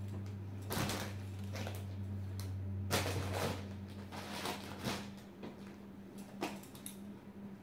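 Rustling and handling of sari cloth in irregular bursts as the saris are put down and picked up from a pile, over a steady low hum.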